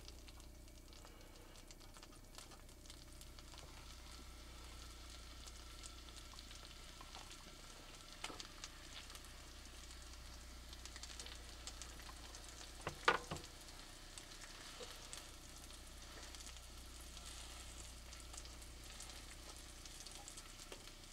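Leftover mashed potatoes frying in a pan: a faint, steady sizzle with fine crackling, and a single sharp tap about thirteen seconds in.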